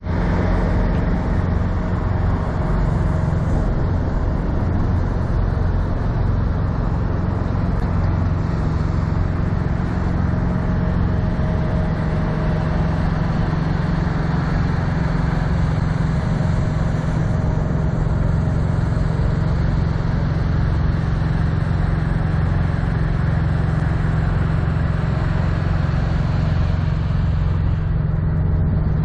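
Heavy diesel truck engine idling steadily: a low, even rumble with a constant hum.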